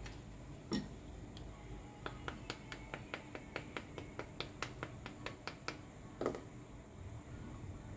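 A run of about twenty short, evenly spaced clicks, roughly five a second, from hand work at the bench, with a duller knock before and after.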